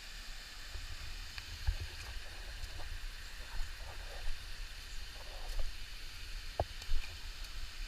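Warm hot-spring stream rushing over rocks, a steady hiss, with scattered knocks and small splashes as someone wades up through it; the sharpest knock comes near the end.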